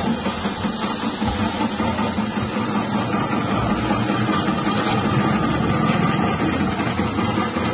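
Electric chip-slicing machine running steadily, its 180-watt motor spinning the cutting blade with a steady hum as a potato is pressed into the feed chute and sliced.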